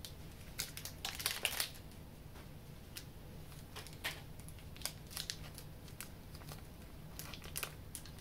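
Plastic and paper medical packaging crinkling and rustling in short, scattered bouts as a saline flush syringe and needleless injection caps are handled and peeled out of their wrappers, over a steady low hum.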